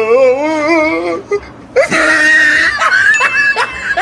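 Edited-in comedy soundtrack: a whimpering, crying voice wobbling up and down in pitch for about a second, then a hissy burst and a run of quick falling squeaks.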